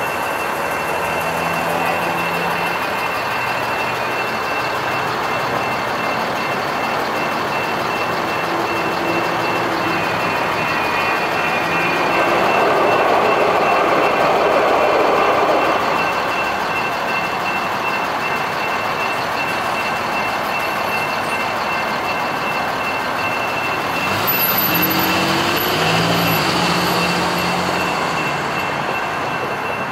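Grade-crossing warning bell ringing steadily while a SacRT light rail train rolls through the crossing, loudest a little under halfway in as the cars pass. Near the end, after the gates lift, car engines pull away across the tracks.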